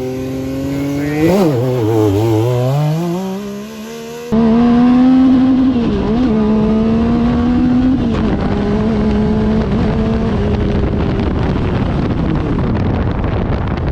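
Yamaha YXZ1000R's three-cylinder engine on its stock exhaust, blipped briefly, then from about four seconds in running loud at high revs under full throttle on a drag pass, the pitch dipping slightly now and then.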